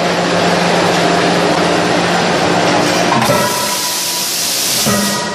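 Steady machinery noise of a hot-forging line: a constant hum under a hiss. About three seconds in the noise changes and a thin steady tone comes in, with no hammer blows yet.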